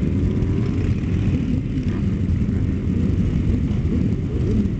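A pack of motorcycle engines running at low speed close around, several of them revving so the engine pitch rises and falls, as the column creeps forward.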